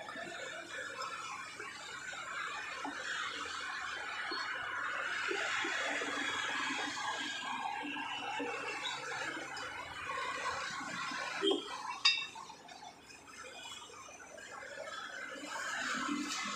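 A butcher's cleaver knocking twice on a wooden chopping block, sharp and close together, about eleven and a half seconds in, over a steady hiss.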